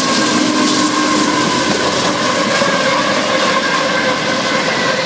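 CSX train rolling past at speed, its wheels clattering steadily over the rail joints.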